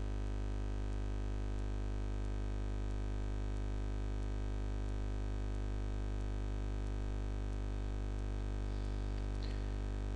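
Steady electrical mains hum and buzz: a low drone with many even overtones that does not change.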